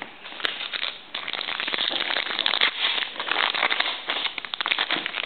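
A plastic trading-card pack wrapper being torn open and crinkled by hand: a dense, irregular crackling that starts about a second in and runs until near the end.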